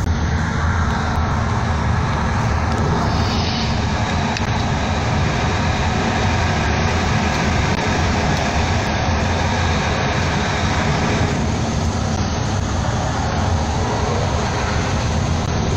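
Steady low engine rumble of heavy vehicles and machinery on a ferry's vehicle deck, with an even noisy hiss over it and no breaks.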